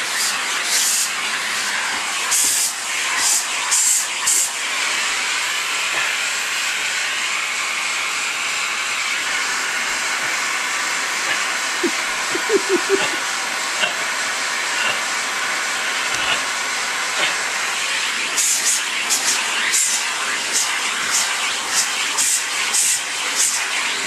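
Vacuum cleaner running steadily with a loud hiss of air through the hose. A brush attachment being stroked over a dog's coat brings short surges of sharper hiss, a little under two a second, at the start and again in the last few seconds; in between only the steady running is heard.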